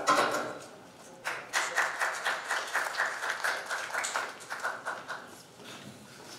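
Hands clapping in a quick, even run of claps, about five a second, starting a little over a second in and lasting about four seconds. A brief loud noise comes just before, at the very start.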